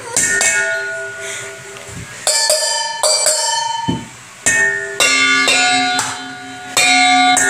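Stainless steel mixing bowls struck by hand, each blow leaving a long, wavering bell-like ring. Four or so strikes come at uneven intervals, the last two on the same bowl.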